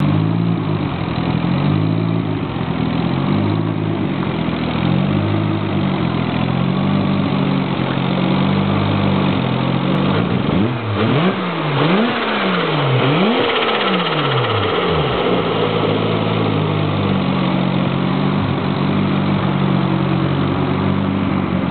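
Turbocharged 20B three-rotor rotary engine in a Mazda RX-7 FD3S idling, then revved three times in quick succession about halfway through before dropping back to idle.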